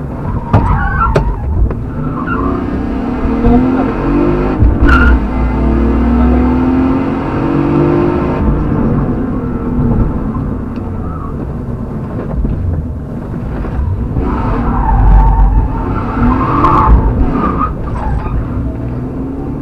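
Rally car's engine heard from inside the cabin, driven hard with the revs climbing and dropping repeatedly. Tyres squeal briefly in the corners near the start and again near the end.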